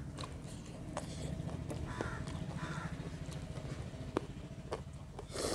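Close-up eating sounds: closed-mouth chewing and wet lip smacks while fingers squish and mix curry-soaked chicken, nettle and dhido on a metal plate, with a scatter of sharp little wet clicks over a steady low hum.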